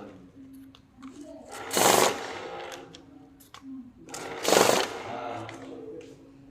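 Banknote counting machine running notes through in two short bursts of about half a second each, about two and a half seconds apart, with a faint steady hum between them.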